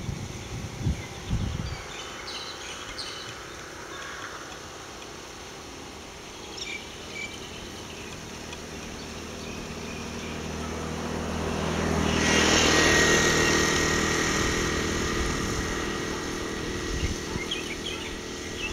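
A motor vehicle passes by: its engine grows louder, is loudest about halfway through, then fades away. Birds chirp now and then, and wind buffets the microphone at the start.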